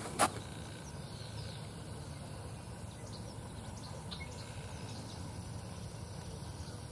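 Quiet outdoor ambience: a steady low background hush with a few faint high chirps. A single sharp knock comes just after the start.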